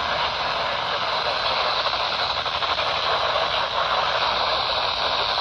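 Weather radio hissing with steady static, no voice coming through the signal.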